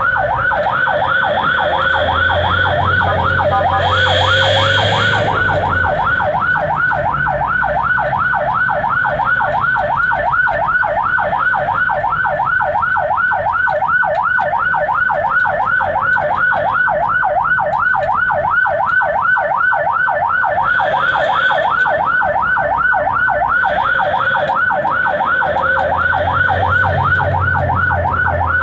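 Ambulance siren on a fast yelp: a rapid rising-and-falling wail repeating about four times a second, heard from inside the ambulance's cab. A lower steady drone joins in for a few seconds twice, near the start and near the end.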